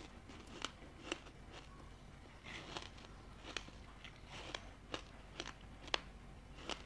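A mouthful of ice coated in matcha powder being chewed: sharp, separate crunches at an uneven pace of roughly one or two a second, the loudest near the end.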